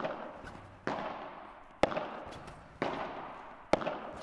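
Padel rackets striking the ball back and forth in a forehand drill: five sharp pops about a second apart, each trailing off in a short echo.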